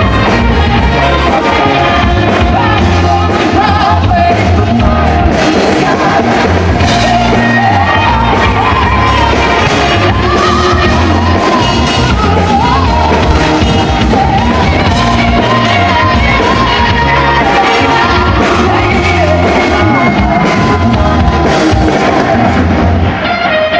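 Live pop-rock band playing loudly with drums, a male singer wailing wordless, sliding vocal lines over it; the band cuts out just before the end.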